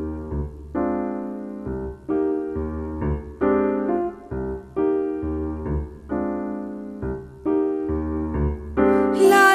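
Song introduction: sustained keyboard chords struck in a slow, steady pulse over low bass notes, with a singing voice coming in near the end.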